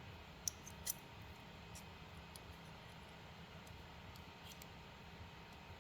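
A few small clicks and taps from 3D printer parts being handled during reassembly, two sharper ones about half a second and a second in, then fainter ticks over a low steady hum.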